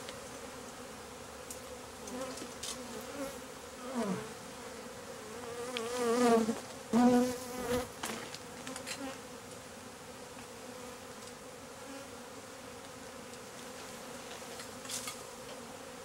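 A swarm of Africanized honey bees buzzing steadily around an opened hive. Now and then a single bee passes close and its buzz swells and wavers in pitch, loudest about six to seven seconds in.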